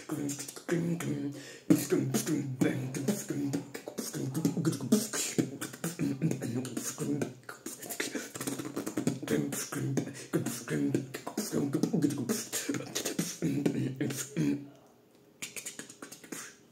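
A person beatboxing: rapid sharp percussive mouth clicks and hits over a pitched vocal line. It stops about two seconds before the end, leaving only a few soft clicks.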